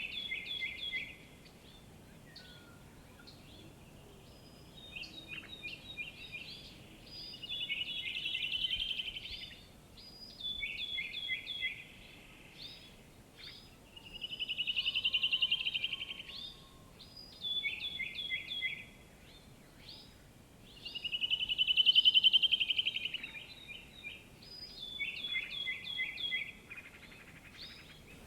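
Birdsong: quick clusters of short, high, falling notes alternate with a rapid buzzy trill that swells and fades, which comes three times, each about two seconds long. A faint steady outdoor hiss lies underneath.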